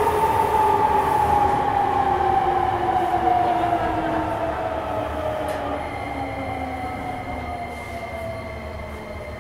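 Nagoya Municipal Subway N3000-series train running, its IGBT-VVVF inverter and traction motors whining in a slowly falling pitch as the train slows, the sound easing off gradually. A steady higher tone joins about six seconds in.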